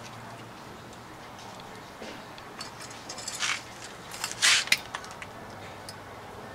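Small clicks and scrapes of hand tools and wires working at a metal electrical box, with two short rasping scrapes a little past the middle.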